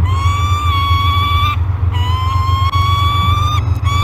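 Juvenile peregrine falcon giving long, wailing begging calls, each about a second and a half and rising slightly in pitch, with short breaks between them; a third call begins near the end. A steady low hum runs underneath.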